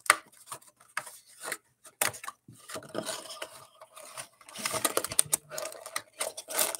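Cardboard being handled as a trading-card hobby box is opened: the lid is lifted and folded into a display stand, with irregular scrapes, rustles and taps, the sharpest right at the start.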